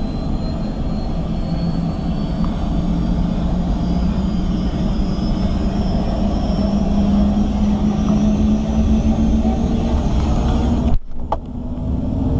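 Helicopter engine and rotor running up just after start, heard from inside the cabin: a steady drone with a whine that climbs slowly in pitch. The sound breaks off for an instant about a second before the end, then carries on.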